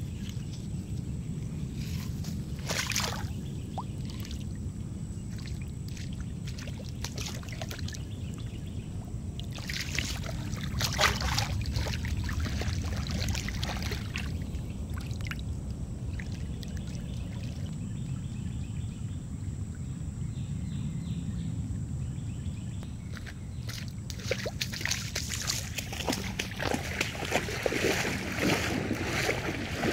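Steady low rumble of wind on a phone microphone, with scattered rustling and scuffing in wet grass. Water sloshing and lapping near the end.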